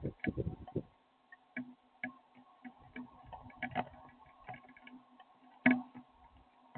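Irregular ticks, taps and soft low thuds over a steady electrical hum, with one louder knock late on.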